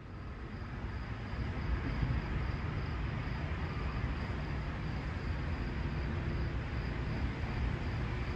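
A steady low rumble with a hiss over it and a faint high whine, fading in over the first couple of seconds and then holding level.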